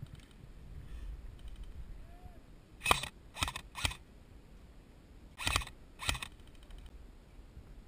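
Airsoft rifle firing single shots: three sharp shots about half a second apart, then after a short pause two more.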